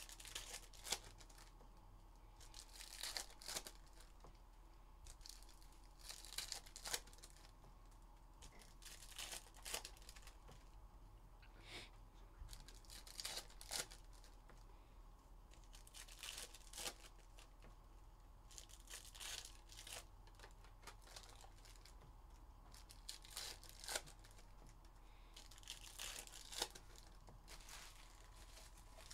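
Foil wrappers of Panini Contenders Football trading-card packs being torn open and crinkled by hand, faint, in short bursts every two to three seconds as pack after pack is opened.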